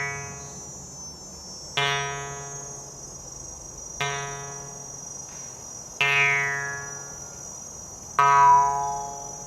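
A plucked string instrument sounds a note or chord about every two seconds, five times, each one ringing and fading before the next, in slow, even meditative playing. A faint steady high-pitched whine runs underneath.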